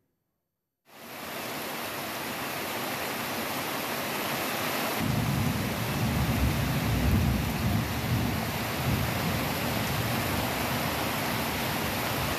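Heavy rain pouring down, a steady even hiss that fades in about a second in. From about five seconds in, a deeper rumble joins it.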